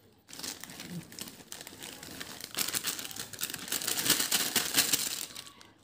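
A plastic snack packet crinkling as puffed snacks are shaken out of it into a plastic carrier bag, with a dense crackle that grows louder in the second half and stops just before the end.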